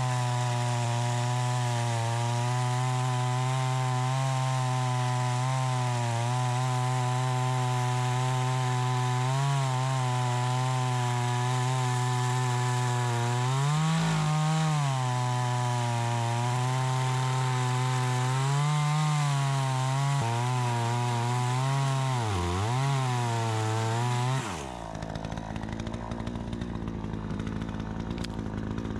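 Troy-Bilt 20-inch two-stroke gas chainsaw running at high revs on a freshly adjusted carburetor, its pitch dipping briefly a few times as if loaded in a cut. About 25 seconds in the engine sound drops sharply to a quieter, lower, rougher sound.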